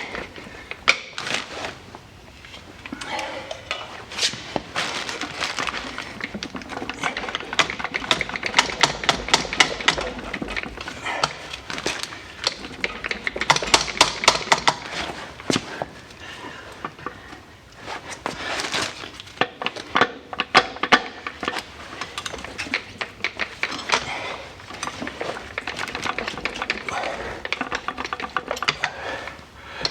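Metal tools and parts clinking and rattling, with runs of rapid clicking, as a manual transmission is worked into place against the engine.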